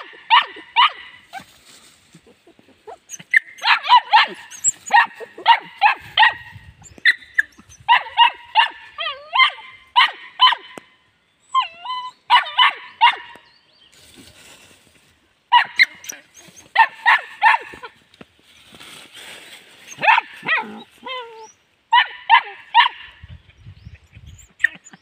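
Puppy barking in play: quick high-pitched yaps in bursts of three to five, over and over with short pauses, with a few brief whining glides between bursts.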